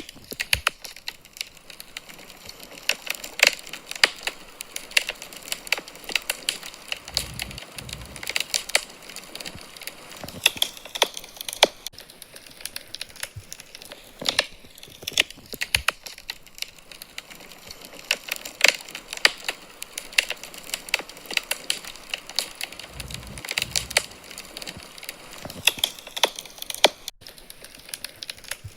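Wood fire in a fireplace crackling: irregular sharp pops and snaps over a soft hiss, with a brief low rumble twice.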